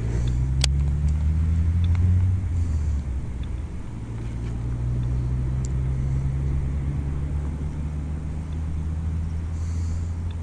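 An engine running with a steady low hum; its pitch rises a little over the first two seconds, dips, then holds steady. A single sharp click about half a second in.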